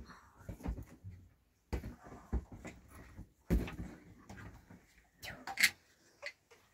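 Baby fussing with short whimpers, among scattered soft knocks and rustling.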